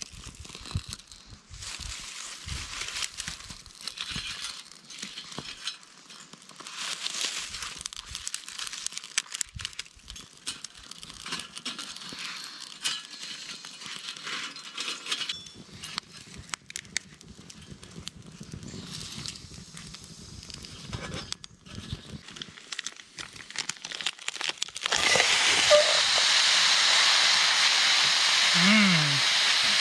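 Small twig fire in a twig stove crackling and popping irregularly as its birch-bark and twig tinder catches. Near the end it gives way suddenly to the loud, steady sizzle of food frying.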